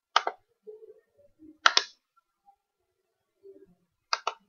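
Computer mouse button clicks: three sharp double clicks spread across a few seconds, with faint desk noises between them.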